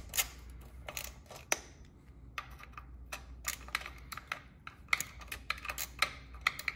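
Small socket ratchet clicking in short, uneven runs as its handle is swung back and forth, tightening the screws of a motorcycle air cleaner onto its backing plate.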